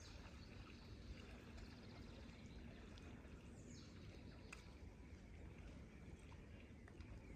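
Near silence: faint outdoor ambience, a steady low rumble with a few faint high chirps and a single soft click about halfway through.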